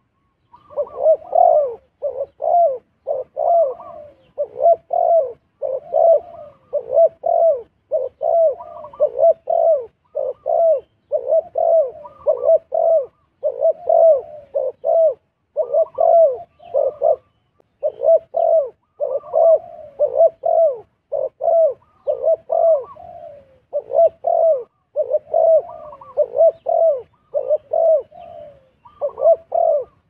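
Spotted dove cooing over and over, about two coos a second, with only brief pauses.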